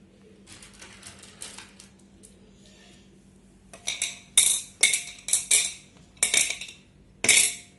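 Small white pebbles being set into an empty glass fishbowl, clinking against the glass and each other: a few faint clicks at first, then a quick run of sharp clinks in the second half.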